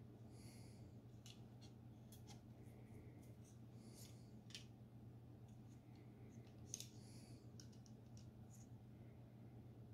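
Near silence: faint scattered clicks of a plastic model railway freight wagon being turned over in the hands, its bogies and wheels ticking, over a low steady hum. The sharpest click comes a little past the middle.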